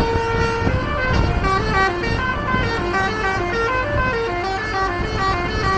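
Bus basuri (telolet) musical air horn playing a quick melody of short stepped notes, about five a second, rising and falling. Low road and engine rumble runs underneath.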